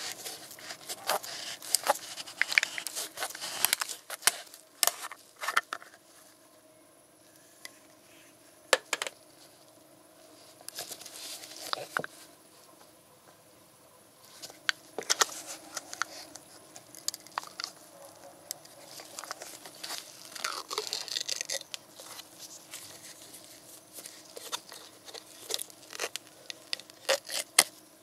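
Plastic screw cap of an engine oil bottle being twisted off with a run of sharp crackling clicks, then the foil seal over the bottle's neck being peeled away with a tearing, crinkling rustle after a quieter stretch.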